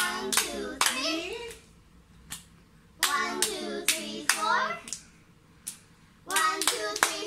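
Two young girls playing a hand-clapping game: sharp palm claps in time with their chanting voices, in three short bursts with quiet pauses between.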